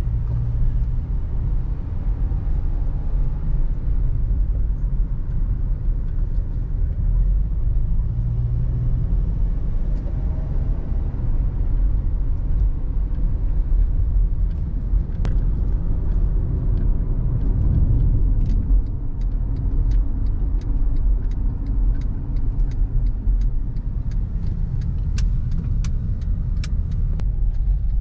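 Road noise inside a moving car's cabin: a steady low rumble of engine and tyres. A run of light ticks, about two a second, comes in over the last ten seconds.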